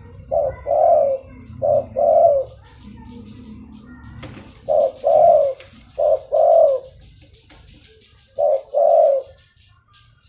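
Spotted dove cooing: five phrases of a short note followed by a longer, slightly falling coo, with gaps between the phrases.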